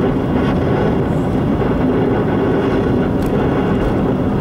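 Car driving at highway speed, heard from inside the cabin: steady road and engine noise with a constant low hum.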